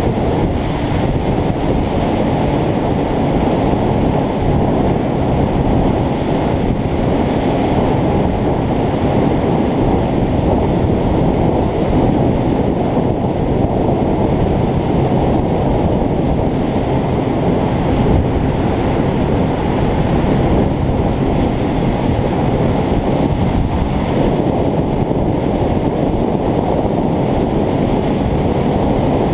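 Steady, loud wind rush buffeting the microphone of a motorcycle-mounted camera at road speed, with no breaks or sudden sounds.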